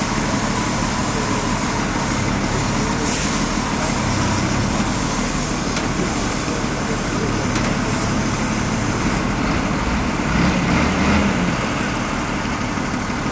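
Heavy truck's diesel engine running steadily, with a short hiss of air about three seconds in and a brief rise in level a little after ten seconds.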